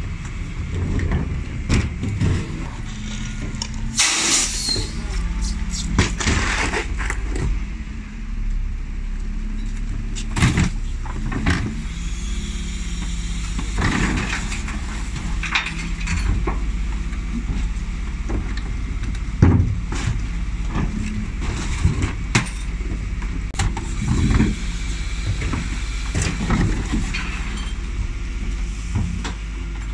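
Dennis Elite 6 refuse truck's diesel engine running, its revs stepping up and down as the Terberg OmniDEL lift raises and tips wheelie bins, with repeated bangs and clatter of the bins and rubbish. There is a loud hiss about four seconds in.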